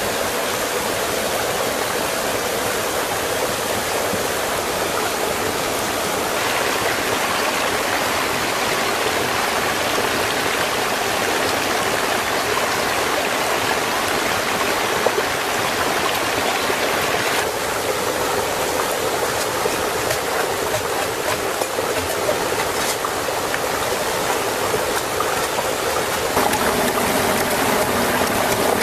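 A small stream rushing and splashing over rocks, a steady sound of running water whose tone shifts a little twice.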